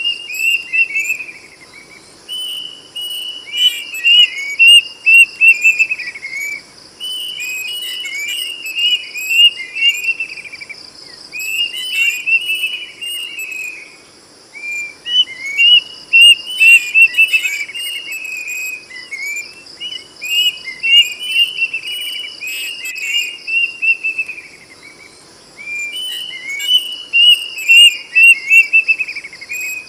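Kedasih cuckoo singing loud bouts of quick whistled notes that fall in pitch, each bout a few seconds long and repeated every few seconds. A steady, high-pitched pulsing insect drone runs underneath.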